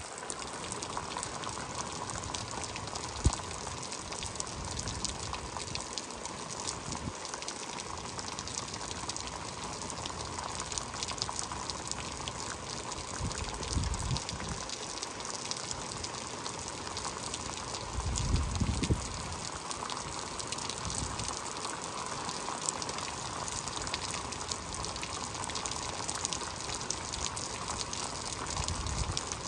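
Heavy rain falling steadily, with a constant rush of gushing water and dense patter. Twice near the middle, a brief low rumble of wind hits the microphone, and there is one sharp tap a few seconds in.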